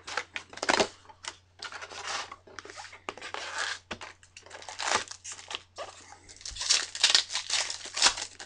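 Cardboard box flaps and insert rustling, then foil Bowman Chrome card packs crinkling as they are pulled from the box and a pack is torn open. The sound is a string of short, irregular rustles and rips.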